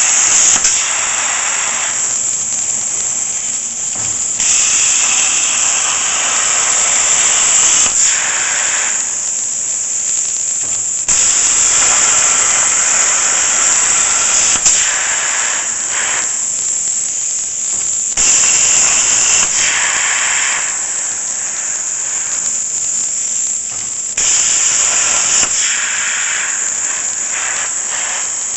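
Plasma torch of a Torchmate CNC table cutting steel plate: a steady, loud hiss of the arc and air jet, with louder and quieter stretches that switch every few seconds.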